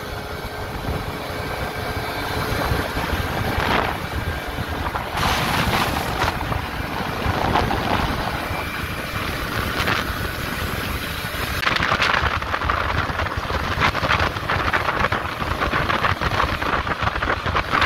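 Gilera Runner scooter ridden flat out at about 80 km/h on a top-speed run, its engine under heavy wind noise buffeting the microphone.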